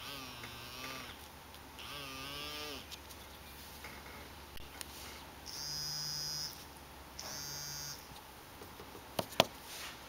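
Small vibration motor inside a limpet shell buzzing in four short bursts, each lasting about as long as its push-button is held down. The pitch wavers in the first two bursts and holds steady in the later two. Two sharp clicks come near the end.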